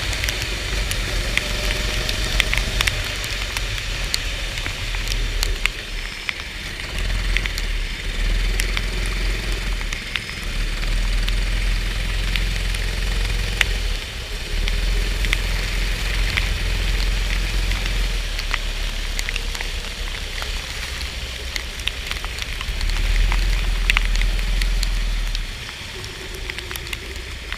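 Onboard sound of a go-kart racing on a rain-soaked track: a deep rumble of the engine and wind on the microphone that swells and drops in long stretches, over a steady crackling hiss of rain and spray. The rumble drops away sharply near the end.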